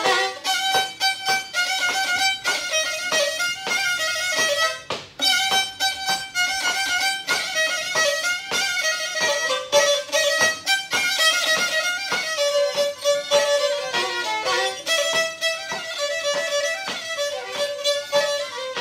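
Black Sea kemençe (Karadeniz kemençesi) played solo with a bow: a fast tune in short, rapid bow strokes, with two or more strings sounding together, and a brief break about five seconds in.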